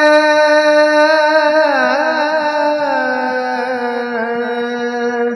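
Devotional kirtan singing: a voice holds long high notes, slides down in a wavering run about two seconds in, then settles on lower held notes and begins to fade out at the end.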